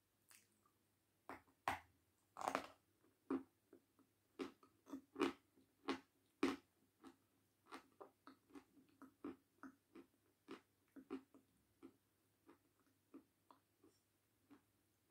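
Close-up crunching as a hard white chunk is bitten off, then chewed. The loudest crunches come in the first half, followed by softer, regular chewing clicks about twice a second.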